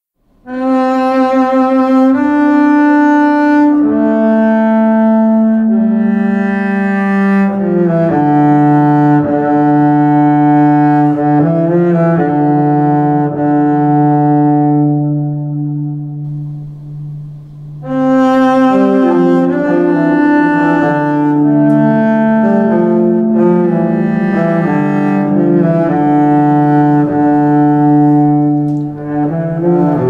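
Background music of slow, long held notes layered over one another, starting about half a second in; it fades away a little before the middle and a new phrase begins just past halfway.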